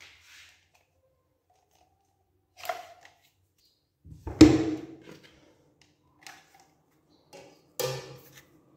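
A few separate knocks and clicks, the loudest about halfway through with a short ringing after it.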